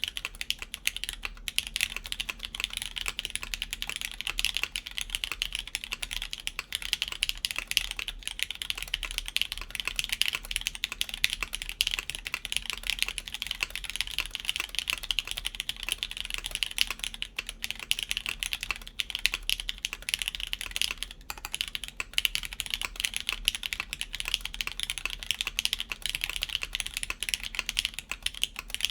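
Continuous fast typing on a mechanical keyboard with lubed Cherry MX Black linear switches, UHMWPE plate and GMK keycaps: a dense, steady stream of keystroke clacks.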